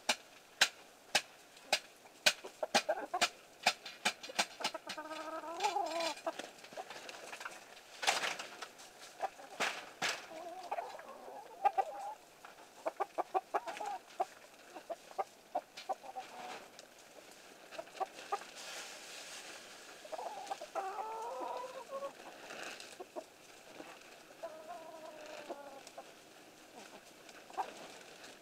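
A flock of chickens feeding on vegetable scraps: many sharp pecking taps, thickest in the first half, with a few short clucking calls scattered through.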